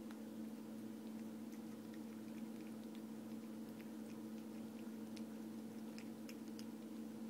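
A cat chewing a noodle: faint, irregular little clicks and smacks, more of them in the second half. A steady low electrical hum runs underneath and is the loudest sound.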